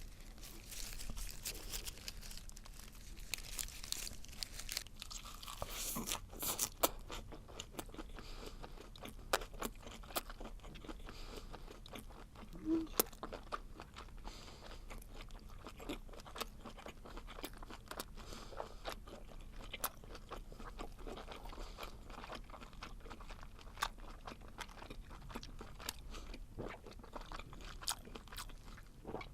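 Close-miked chewing of lettuce wrapped around a whole webfoot octopus: crisp lettuce crunching mixed with wet, chewy mouth sounds, heard as a steady stream of short clicks and crackles.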